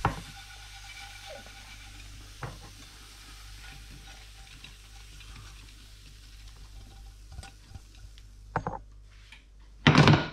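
Crispy fried squid and vegetables scraping and sliding out of a frying pan onto a plate, over a faint sizzle of hot butter and oil. There are a few light knocks and a loud clatter near the end.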